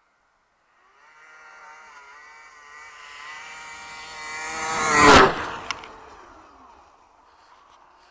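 Yamaha SRX 700 snowmobile's three-cylinder two-stroke engine at speed, approaching and growing louder, then passing close about five seconds in. Its pitch drops as it goes by, and it fades away.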